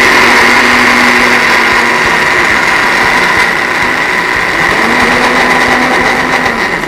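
Electric countertop jug blender running at full speed, blending a thick avocado, soy milk and chocolate powder mixture until smooth. It gives a steady high whine over a motor hum, and the motor spins down near the end.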